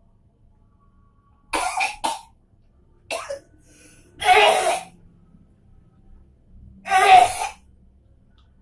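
A person coughing in separate harsh coughs: a quick double cough about a second and a half in, a short one around three seconds, then two louder single coughs near the middle and end. It is a cough meant to bring up phlegm.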